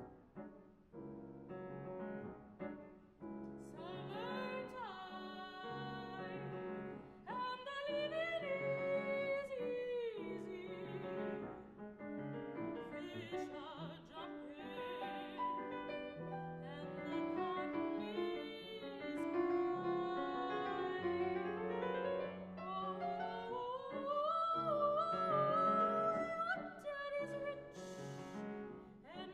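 Soprano voice singing an improvised jazz line in a classically trained style over grand piano accompaniment. The voice comes in about four seconds in, after a few piano chords, and later sweeps upward in long rising slides.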